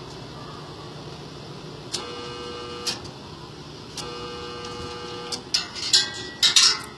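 Welding machine buzzing in two bursts of about a second each, each starting and ending with a click, over a steady hum. Several loud crackling bursts follow near the end.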